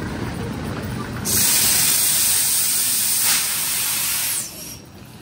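Compressed air venting from the train's air system: a loud, even hiss that starts about a second in, swells briefly, and cuts off sharply after about three seconds.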